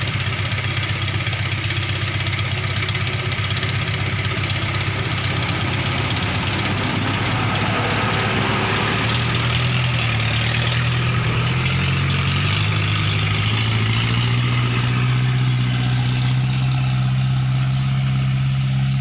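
Vehicle engine running steadily, then rising in pitch in steps about halfway through and holding at the higher speed.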